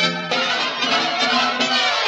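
Background music led by violin, with a new note or phrase starting about a third of a second in.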